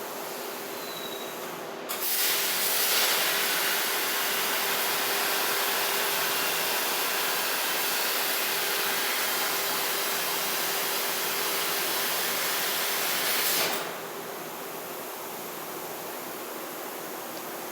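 CNC plasma cutter torch cutting: a loud, steady hiss that starts suddenly about two seconds in and stops abruptly near fourteen seconds. A quieter steady hiss continues before and after the cut.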